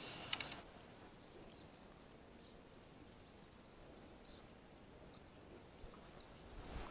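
Faint outdoor riverside ambience with scattered short, high bird chirps. A brief rustling burst with a sharp click comes right at the start.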